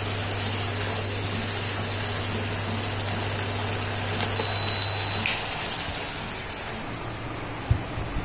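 Dry fish curry sizzling in a non-stick pan on an induction cooktop, over the cooktop's steady low hum. About four seconds in, a short beep and a click, and the hum stops as the cooktop is switched off; a single knock near the end.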